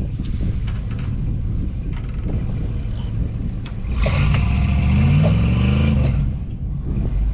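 Pickup truck engine running under load, revving up about four seconds in with a rising pitch for about two seconds, then easing off. It is straining against a strapped tree it cannot budge, stuck and unable to move forward or back.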